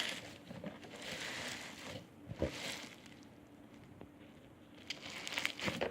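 Hands squishing and stretching foam bead slime: soft, sticky squelching and crackling in a few bouts, with a quiet lull in the middle and a few small clicks near the end.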